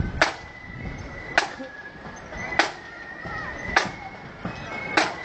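Marching band drum struck on a slow, steady beat, one sharp hit about every 1.2 seconds, keeping time for the marchers. Thin high sustained tones sound faintly between the hits.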